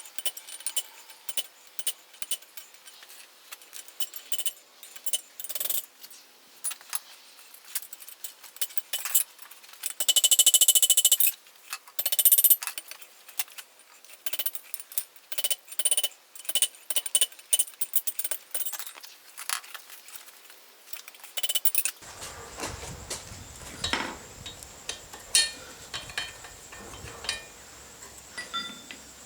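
Mild-steel parts clinking and scraping as the freshly forged shackle is handled and wire-brushed, with a dense scrubbing stretch about ten seconds in. A low rumble and a steady high hum join the background about two-thirds of the way through.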